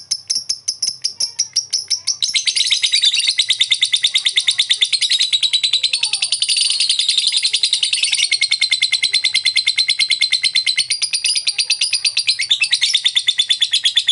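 Masked lovebird calling: a run of rapid, separate high clicking chirps, about six a second (the 'ngetik' call). About two seconds in, it breaks into a long, fast, unbroken high-pitched trilling chatter (the long 'ngekek').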